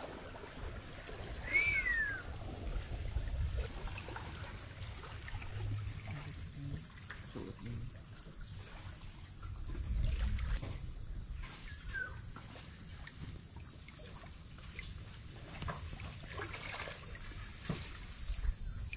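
Steady, shrill chirring of an insect chorus, high-pitched with a fast pulsing texture, over faint clicks and handling noises.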